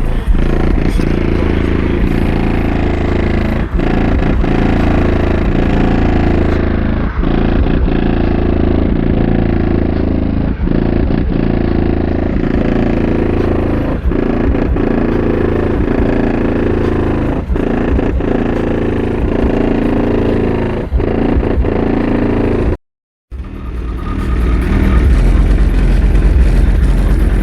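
Bass-heavy music with no vocals, played loud through two 12-inch DB Audio T-Rex car subwoofers, the low end dominating in a pattern that repeats about every three and a half seconds. The sound cuts out briefly near the end, then returns as another loud, low-heavy passage.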